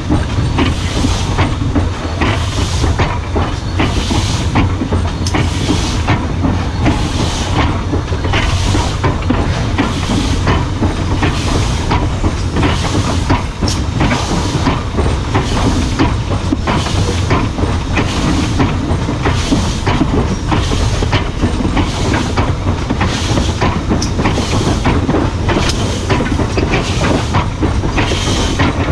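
Steam locomotive working at a steady speed, its exhaust chuffing in an even beat a little over once a second, over the steady rumble and clatter of the train rolling on the rails.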